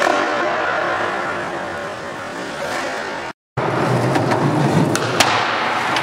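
Skateboard wheels rolling on concrete, with a few sharp clacks of the board. The sound cuts out for a moment a little past halfway, then the rolling picks up again.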